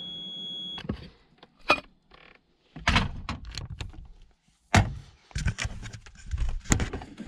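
Knocks, thuds and clatter of a tin can and campervan cupboard doors being handled. A steady high whine cuts off about a second in.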